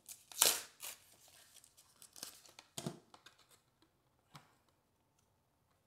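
Pokémon booster pack wrapper being torn open by hand: one loud rip about half a second in, then scattered shorter crinkles and rustles of the wrapper that die away in the second half.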